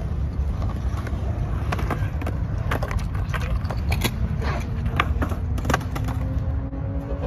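Skateboards rolling on a concrete bowl, with repeated sharp clacks and knocks of boards and wheels striking the concrete over a steady low rumble.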